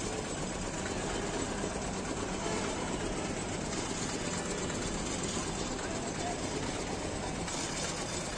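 Steady street background noise: a continuous traffic rumble with faint voices mixed in.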